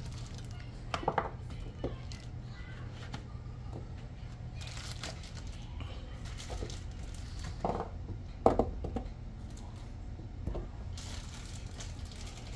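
Plastic bag of baby carrots crinkling as carrots are pulled out by hand and dropped into a metal roasting pan, with a few short knocks as they land, the loudest about two-thirds of the way through, over a low steady hum.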